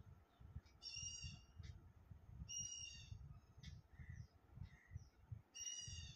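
Three short, faint bird calls, each a high note with many overtones, coming about two seconds apart over a low rumble.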